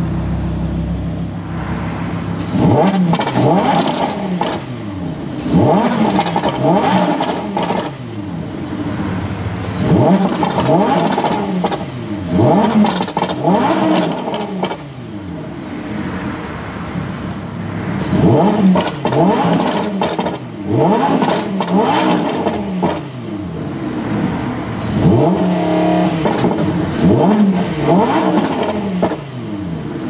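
Lamborghini Huracán LP610-4's 5.2-litre V10 revved in neutral in Strada (street) mode, heard from inside the cabin. The revs are blipped again and again, each burst rising and falling, often two in quick succession, with the engine dropping back to idle between.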